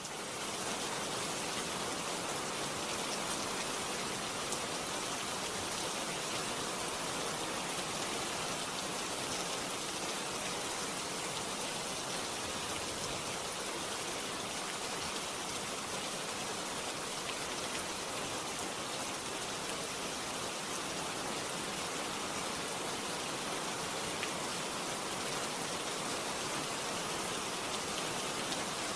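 Steady rain falling: an even hiss with faint scattered drop ticks, unchanging throughout.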